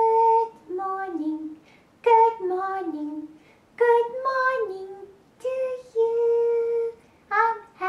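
A woman singing in a high, childlike voice for an alligator hand puppet: short phrases of held notes that step down in pitch, with brief breaks between them.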